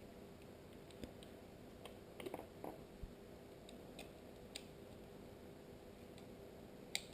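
Faint, irregular clicks and taps of small plastic and metal parts of an IP camera being handled and fitted together during assembly, over a low steady hum.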